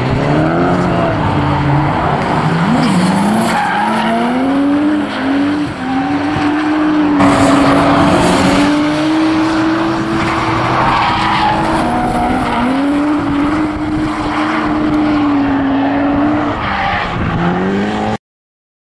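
A drift car's engine revving hard, its pitch rising and falling with the throttle, over the squeal of tyres sliding sideways. The sound cuts off suddenly near the end.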